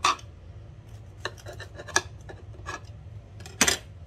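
Large kitchen knife cutting down through a thick martabak pancake and knocking and scraping on the board beneath: a handful of sharp clicks and short scrapes, the loudest near the end.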